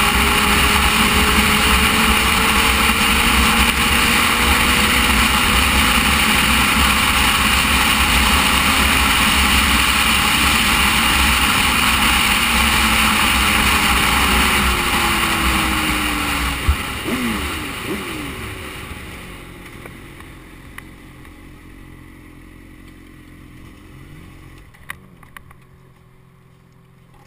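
Wind rushing over the microphone with a Suzuki sport motorcycle's engine running at road speed. Around two-thirds through, the wind noise fades as the bike slows, with a few short rev blips, and it ends with the engine idling quietly at a standstill.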